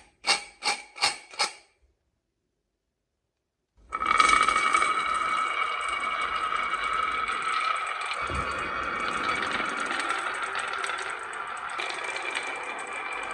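Four quick sharp clicks about a third of a second apart, then after a short pause a continuous rattling rumble of marbles rolling down a marble run track, with a steady ringing tone over it.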